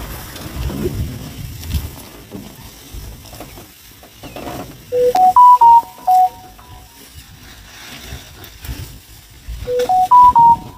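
A short tune of clear, steady tones that climbs in three steps and then falls back. It plays twice, about five seconds apart: once about five seconds in and again near the end, over faint low background noise.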